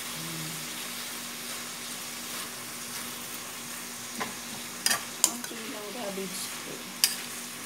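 Cabbage and canned tuna sizzling in a wok as they are stirred and tossed with a spatula, a steady frying hiss, with a few sharp clicks of the spatula against the pan about five and seven seconds in.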